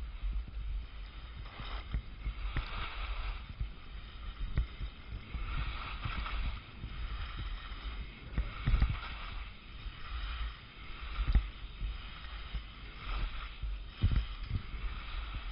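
Touring skis hissing through snow, the hiss swelling with each turn about every two seconds, over a steady low rumble with occasional short knocks.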